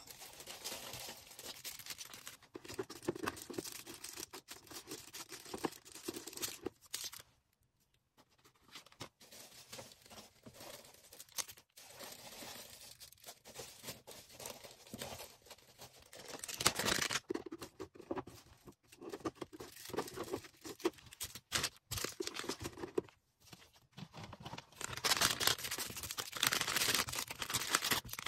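Order packaging handled by hand: crinkling, rustling and tearing, with a brief stop about seven seconds in.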